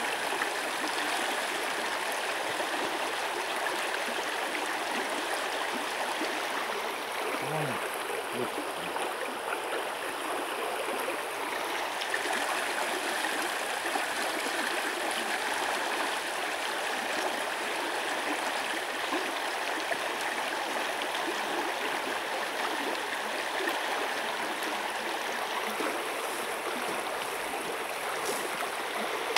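Small river rushing steadily over a shallow, rocky riffle.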